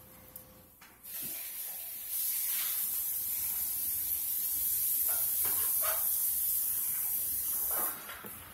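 A steady high-pitched hiss that starts about a second in, gets louder a second later and cuts off abruptly near the end, with a few faint soft sounds over it.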